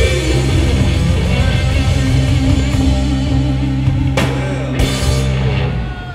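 A blues-rock trio playing live: electric guitar, electric bass and drum kit. There are two loud cymbal crashes about four seconds in, and the music dies away near the end.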